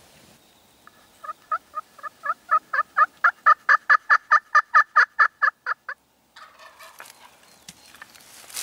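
A long series of turkey yelps, about four a second, building in loudness and then stopping abruptly.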